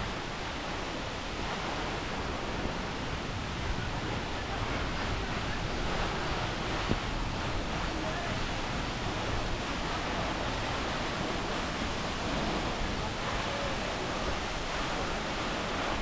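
Waterfall rushing: a steady, even noise without a break.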